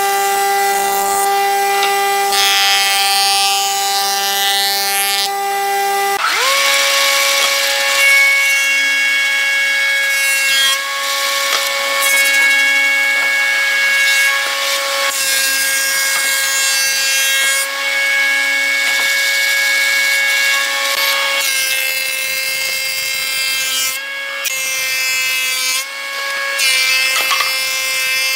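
Industrial jointer and thickness planer running with a steady high whine, the cutter head hissing as wooden boards are planed in passes that swell and fade every few seconds. The whine glides up to a higher pitch about six seconds in.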